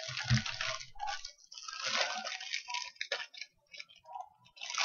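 Thin plastic courier mailer bag crinkling and crackling as it is handled and pulled open by hand, in bursts with short pauses, with a dull bump just after the start.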